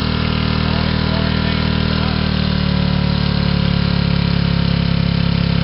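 An old Subaru's boxer engine running steadily with no load while it overheats, its coolant boiling off as thick steam. The engine sound grows a little louder about halfway through.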